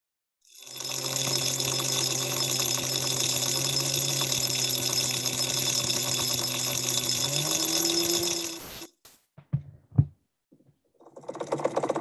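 Small hobby DC motors driving found-object kinetic sculptures: a steady electric whirring buzz that glides up in pitch near its end and cuts off, a few sharp knocks, then a second motorised assemblage starting up with a fast rattle.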